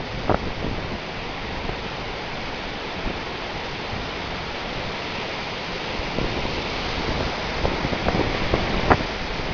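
Sea surf: a steady rushing noise of waves, with wind blowing on the microphone and growing a little louder near the end.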